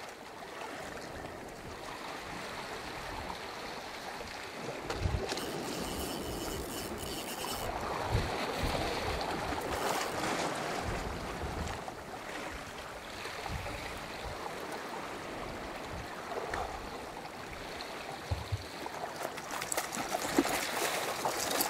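Sea surf washing and surging against a rocky shoreline: a steady rushing wash that swells and eases, with a few short knocks in it.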